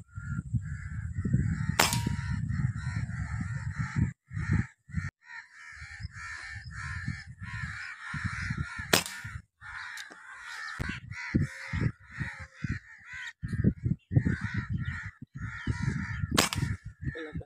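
Three sharp cracks of a PCP air rifle firing, about two, nine and sixteen seconds in, over birds calling repeatedly and a loud low rumble that stops and starts.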